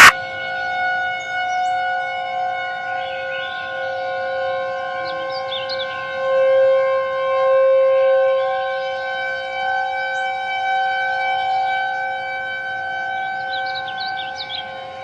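Civil defense warning siren sounding a steady multi-tone chord, its level swelling and fading slowly.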